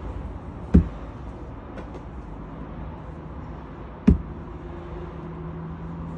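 Two sharp thuds about three seconds apart over a steady mechanical hum.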